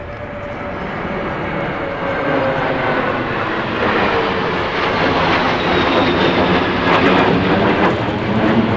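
Jet engine noise from a large multi-engine jet and two escorting fast jets flying low overhead in formation. It is a steady rumble that grows steadily louder as they come overhead.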